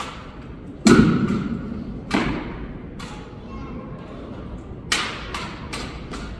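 Drill rifle being spun, caught and slapped by hand in a drill routine: a heavy thump about a second in, another about two seconds in and a sharp one near five seconds, with lighter taps and clicks between, echoing in a large hall.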